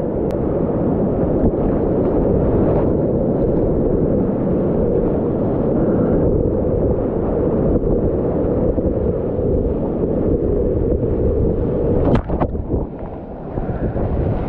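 Whitewater rapids rushing loudly and steadily, heard close up from a kayak running them. The level dips briefly about twelve seconds in, with a sharp splash.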